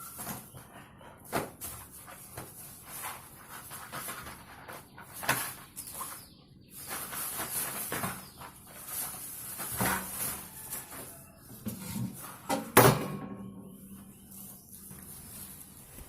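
Scattered knocks, clicks and handling noises as objects are picked up and set down, with one louder knock about 13 seconds in.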